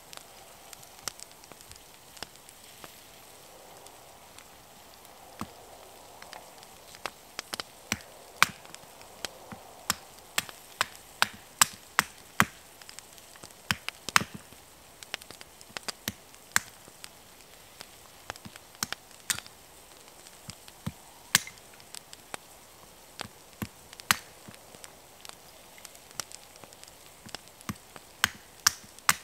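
Sharp wooden cracks and snaps at irregular intervals, sometimes several in quick succession, over a faint steady hiss.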